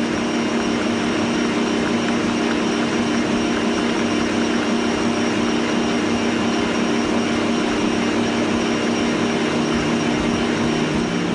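Electric stand mixer running steadily at speed, its whisk beating whipping cream in a stainless steel bowl until it thickens and holds its shape.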